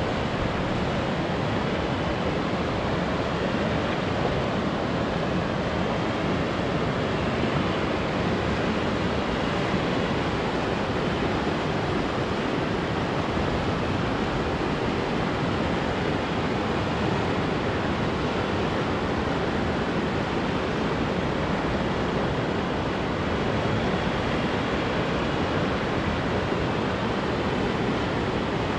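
A swollen, fast-flowing river rushing over rapids: a steady, unbroken sound of moving water.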